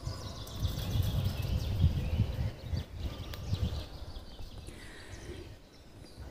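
Wild birds singing faintly in the surrounding woods, over a low, uneven rumble.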